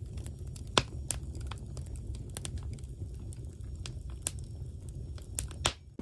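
Wood fire burning in the open firebox of a brick stove: a steady low rumble of the flames with sharp crackles and pops from the burning logs, the loudest about a second in.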